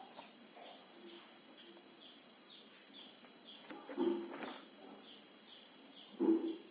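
A steady, high, unbroken insect trill, like a cricket chorus, runs throughout. Two short voice-like sounds cut across it, one about four seconds in and a louder one near the end.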